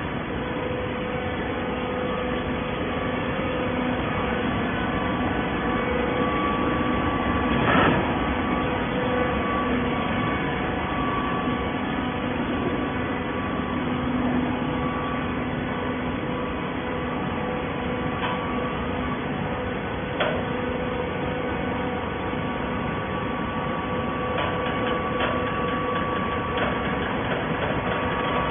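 Hydraulic scrap carton baler running: a steady machine hum with a few held tones from its motor and pump. There is one loud knock about eight seconds in and a smaller click around twenty seconds.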